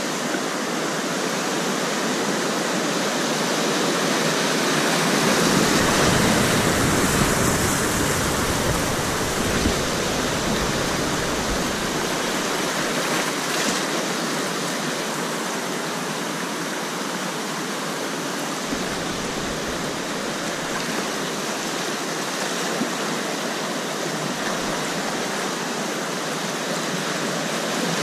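Whitewater rapids rushing steadily around a kayak as it runs them. A deeper rumble comes in from about five to twelve seconds in, and again around nineteen to twenty-four seconds.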